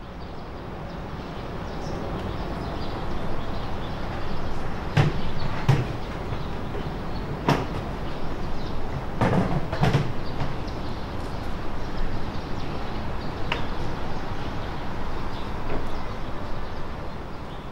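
Steady background noise with a cluster of sharp knocks or bangs between about five and ten seconds in, and a lighter one a few seconds later.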